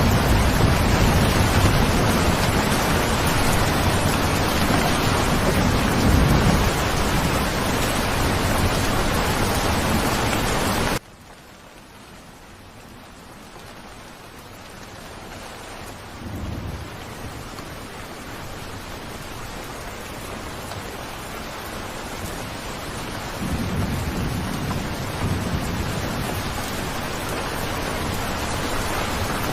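Steady heavy rain with low rolling thunder. The rain cuts down abruptly about eleven seconds in, then slowly builds back as more thunder rumbles in.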